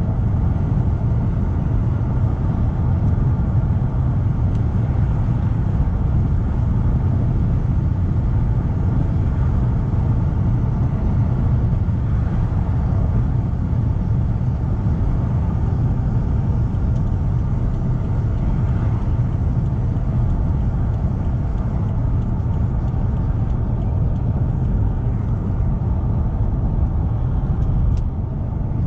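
BMW 535d's 3.0-litre twin-turbo straight-six diesel with a straight-piped exhaust, heard from inside the cabin while cruising at a steady speed. It makes a steady low rumble mixed with road noise, with no revving up or down.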